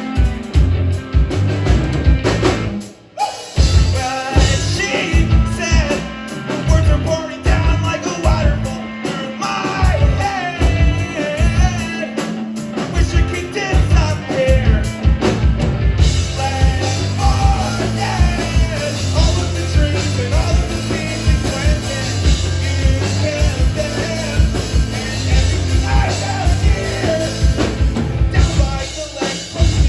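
Live rock band playing, with a lead vocal over drum kit, bass and guitars, recorded from the audience. The band drops out briefly about three seconds in, and the playing thins out near the end.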